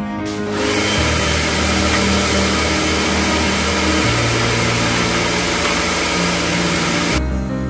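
Pressure washer spraying water onto a car's bodywork: a loud, steady hiss that starts about half a second in and cuts off suddenly near the end.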